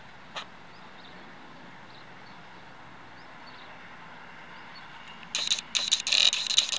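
Faint, steady sound of a distant Fendt 930 tractor pulling a loaded forage wagon. About five seconds in comes a second and a half of loud, irregular rustling close to the microphone, much louder than the tractor.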